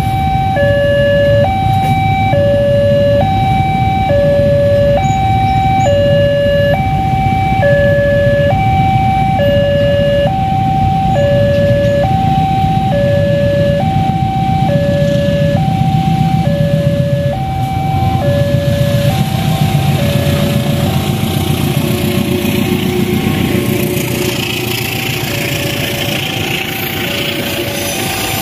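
Railway level-crossing warning alarm sounding continuously, an electronic signal switching back and forth between two pitches, each held just under a second, over a steady low rumble. In the last several seconds a rising hiss and rumble of an approaching train builds as the alarm becomes weaker.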